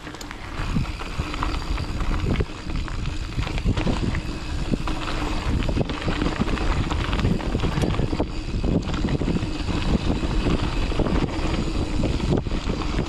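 Mountain bike rolling fast down a dirt trail: steady tyre and wind noise on the microphone, with frequent knocks and rattles as the bike goes over bumps.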